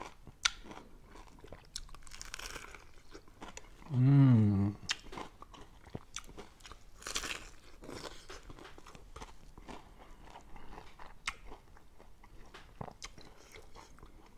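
A person biting into and chewing a crisp fried chicken drumstick, with short crunches and mouth clicks scattered throughout. About four seconds in comes a loud hummed sound of enjoyment with a wavering pitch.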